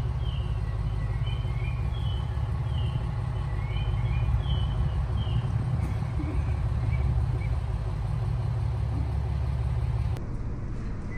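Steady low rumble of a train standing at a snowy station platform. It drops off abruptly about ten seconds in.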